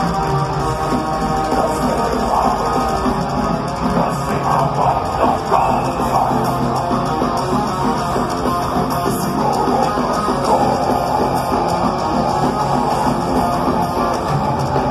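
Melodic death metal band playing live through a concert PA: distorted electric guitars and a drum kit, heard from among the crowd.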